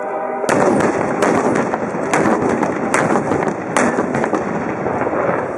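FH70 155 mm towed howitzers firing blanks together with battlefield pyrotechnic charges: a sudden blast about half a second in, then a rapid string of sharp bangs and cracks over a continuous rumble.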